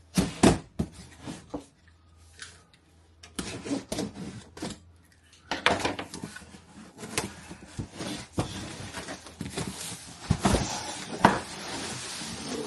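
A cardboard box being opened and unpacked by hand: irregular knocks, scrapes and rustling of cardboard and packing, with a short lull before the handling picks up again.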